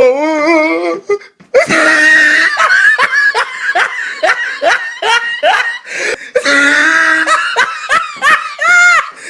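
Loud, hearty human laughter in a long run of rhythmic bursts. It starts after a wavering, quavering vocal sound in the first second and ends with a couple of high-pitched squeals.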